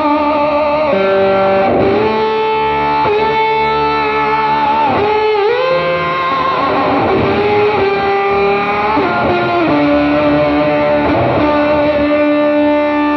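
Electric guitar played through a handmade EVH 5150-style distortion pedal: sustained lead notes held for a second or more, with several bent notes in the middle and later on.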